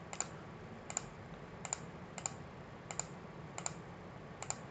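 Faint clicks of a computer mouse and keyboard: seven single clicks spaced a little under a second apart.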